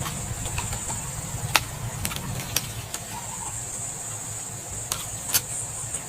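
Steady high-pitched insect or cricket chorus over a low rumble, with a few sharp clicks scattered through.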